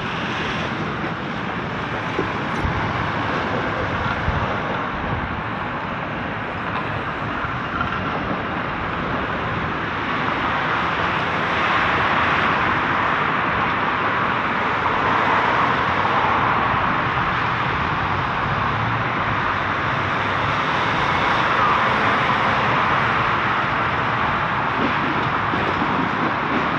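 Road traffic noise: a continuous rush of passing vehicles that grows a little louder about ten seconds in, with a couple of faint knocks early on.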